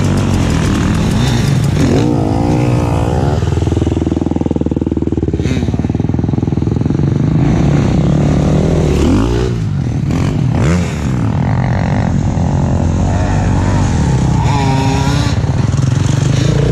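KTM SX 125 two-stroke single-cylinder motocross engine being ridden hard, revving up and down with the throttle, with a brief dip about eleven seconds in.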